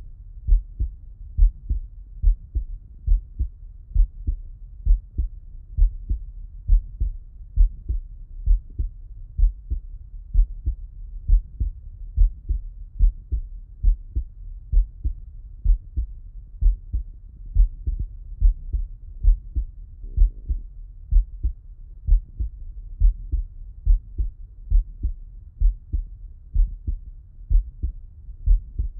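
A human heartbeat heard through a Littmann stethoscope's chest piece with the man lying on his left side. Steady, evenly spaced lub-dub pairs of dull, low thumps.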